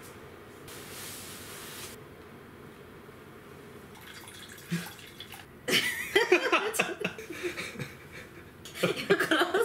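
Drink poured from a small bottle into a copper tumbler, a soft trickle, then from about six seconds in a person's voice making sounds without clear words.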